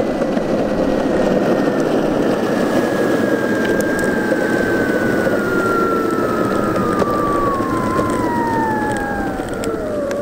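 Yuneec EGO 2 electric skateboard rolling downhill over rough asphalt, with a steady rumble from its wheels and a motor whine that falls steadily in pitch as the board slows under regenerative braking, dropping faster near the end.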